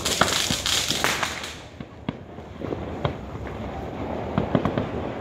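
Aerial fireworks crackling in a dense, rapid burst of pops for about the first second and a half. Scattered single sharp knocks follow.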